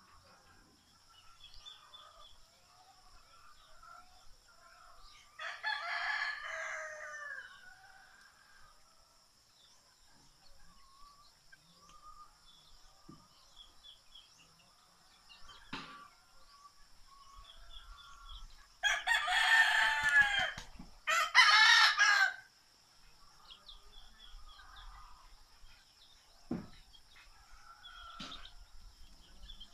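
Rooster crowing: one crow about five seconds in, then a louder one about two-thirds of the way through, in two close parts. Faint bird chirps can be heard between the crows.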